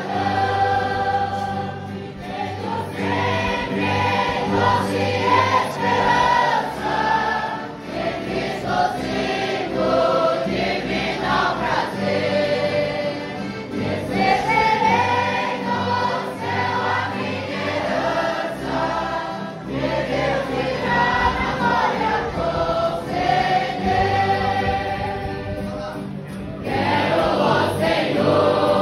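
A group of young people singing a hymn together, in long phrases with short breaks between them.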